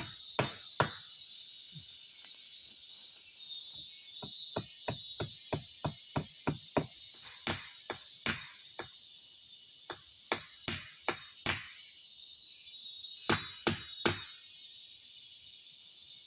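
Wood being struck with sharp, repeated blows, about two or three a second, in runs broken by short pauses, with the loudest blows near the end. A steady high-pitched hum runs underneath.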